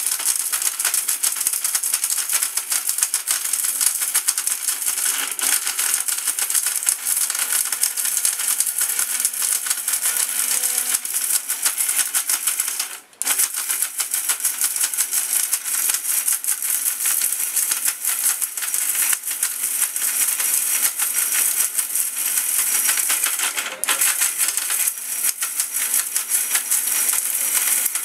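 850-watt Boss mixer grinder running at speed, with whole turmeric pieces rattling against its stainless-steel grinding jar as they are ground to powder. It cuts out for an instant about 13 seconds in, then runs on.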